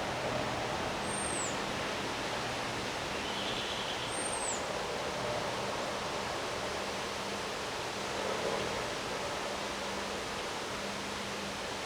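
Steady hiss of a thunderstorm's wind and rain, even in level throughout, with two short high falling chirps about one and four seconds in.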